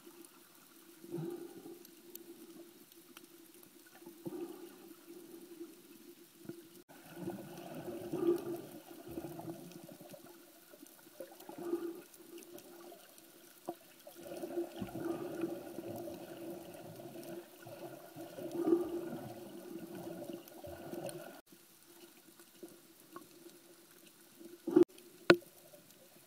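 Water heard through an underwater camera: muffled swishing and gurgling in irregular surges, over a steady low hum, with two sharp clicks near the end.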